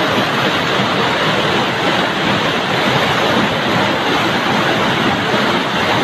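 Floodwater rushing and churning through a street, a steady loud roar of turbulent water surging against shop fronts.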